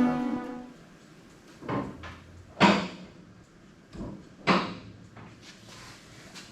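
Background music fading out, then a handful of separate sharp knocks and clunks spaced about a second apart, the loudest a little under three seconds in.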